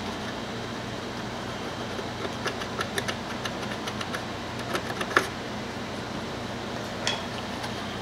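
Small scratchy clicks as leftover butyl rubber sealant is scraped off the plastic lip of a headlight housing, a cluster of them in the middle and one more near the end, over a steady background hum.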